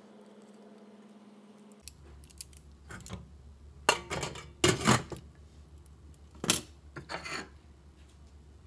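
A stainless steel steamer pot and its lid being handled on a gas stove: a series of sharp metal clinks and knocks, loudest about halfway through, after a brief steady low hum at the start.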